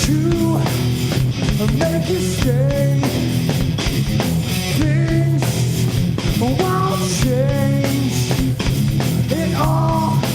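Live rock band playing: distorted electric guitar, bass and drum kit, with a lead line of bending, wavering notes over a steady low end.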